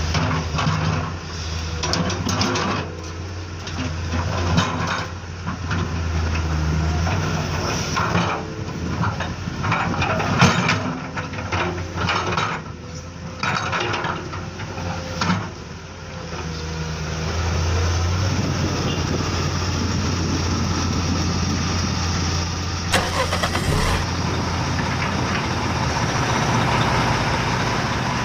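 RC dump truck and RC excavator working: a steady engine-like hum with repeated knocks and clatter, giving way after about 18 seconds to a steadier rushing vehicle noise.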